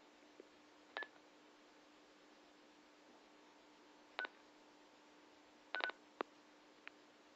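Short electronic keypad beeps from a handheld two-way radio as its buttons are pressed: one about a second in, another about three seconds later, then a quick run of several beeps near the end. A faint steady hum runs underneath.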